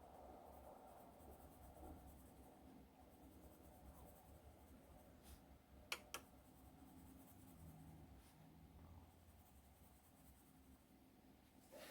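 Faint scratching of a 0.9 mm HB mechanical pencil lead writing on paper. Two sharp clicks in quick succession about halfway through.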